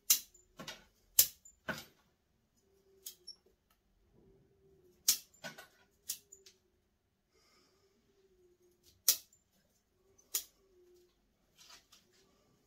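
Bonsai pruning shears snipping through white spruce twigs and branches: about ten sharp snips at irregular intervals, a few much louder than the rest.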